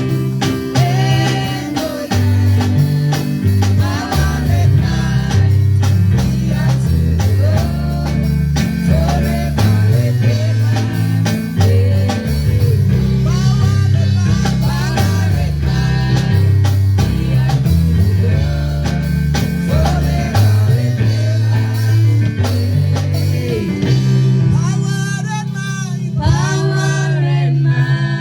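Live gospel worship music: a band with bass, guitar and drum kit playing a steady beat under sung vocals.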